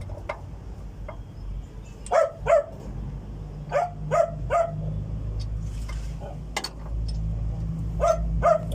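A dog barking in short clusters of two or three barks, over a low steady hum that grows louder near the end.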